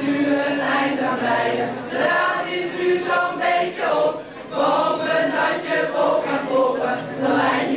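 A group of young men and women singing together as a choir, held notes changing pitch through a song.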